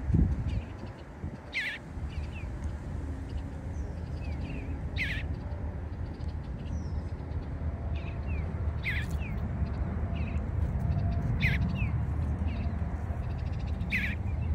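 Bluebird calling, a short falling call repeated about every three seconds with fainter chirps after each, over a steady low rumble, with a low thump right at the start.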